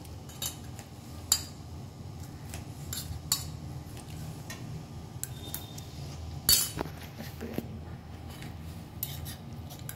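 Metal spoon clinking and scraping in a stainless steel bowl of mixed peas, in scattered knocks with the loudest about six and a half seconds in, over a steady low hum.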